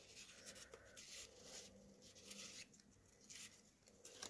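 Faint rustling and sliding of paper tags and slips as hands shuffle through a stack of them, in a few short scattered bursts.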